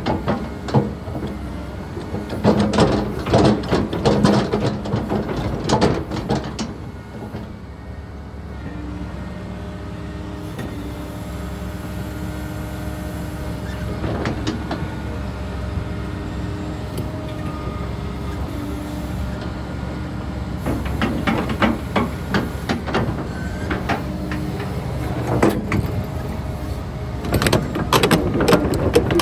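Volvo ECR145 excavator at work: its diesel engine runs steadily under hydraulic load throughout. Clusters of metal clanking and scraping come through the first several seconds and again in the last third, with a calmer stretch of engine and hydraulics in between.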